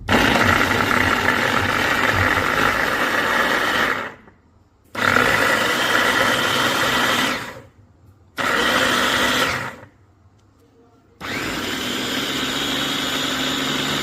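Dessini Italy RS-1686 capsule chopper's electric motor and spinning blades, run in four separate bursts of a few seconds each, starting and stopping sharply; the last run is a little quieter.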